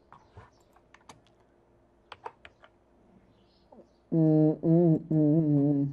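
A few faint, widely spaced keystrokes on a computer keyboard, then a man's voice for the last two seconds or so.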